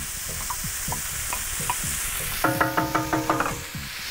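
Chopped onion, carrot, celery and garlic frying on a disco plow-disc pan over a wood fire: a steady sizzle, with small clicks and scrapes from the wooden spatula stirring. About two and a half seconds in there is a quick ringing rattle of about a dozen rapid pulses, lasting roughly a second.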